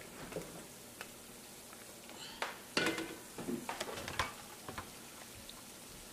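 Tomato paste and onions frying in oil in a large pot, a steady low sizzle. From about two and a half to four and a half seconds in, a run of knocks and clatters of pot and utensils, the loudest near the middle.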